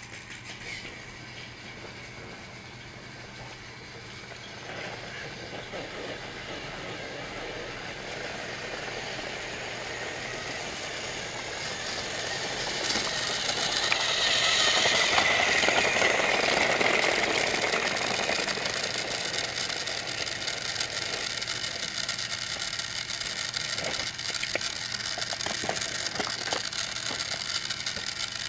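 Motorized TrackMaster toy train running on plastic track: a small battery electric motor whirring, with the wheels and truck rattling over the track. It grows louder as the engine comes toward the microphone, is loudest about halfway through, then runs on steadily.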